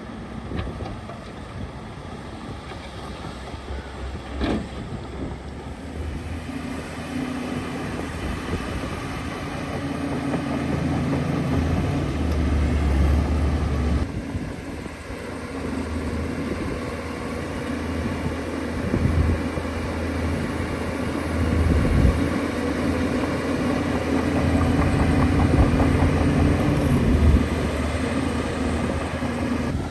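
Shantui bulldozer's diesel engine running and working, its pitch and loudness shifting with load and growing louder through the middle, with one sharp knock about four and a half seconds in.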